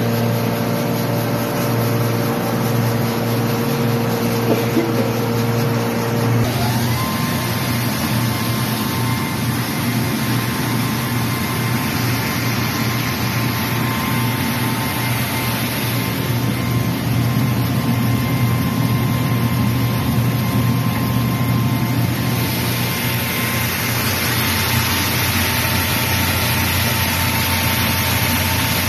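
South Korean-made rice milling machine running steadily, a loud mechanical hum with a whine over the rush of grain moving through it. About six seconds in, the whine shifts to a higher pitch.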